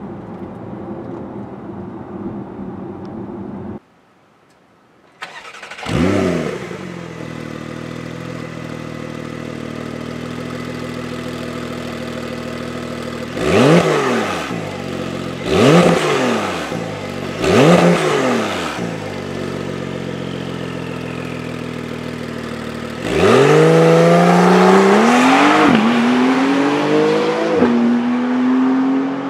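Porsche 911 Targa 4 GTS flat-six through an Akrapovic titanium slip-on exhaust. It is first heard as a steady hum from inside the cabin in normal mode. After a short break it is heard from behind the car in Sport Plus: it comes in with a brief rev and settles to idle, gives three quick throttle blips, then accelerates away, its pitch rising through two upshifts.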